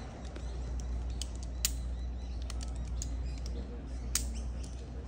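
Climbing hardware being handled, with a few sharp metallic clicks and clinks, the loudest about one and a half seconds in and again about four seconds in, over a steady low rumble.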